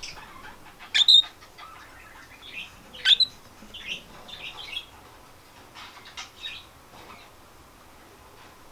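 Cockatiel giving short, sharp chirps. The two loudest come about a second in and about three seconds in, with softer chirps scattered after them.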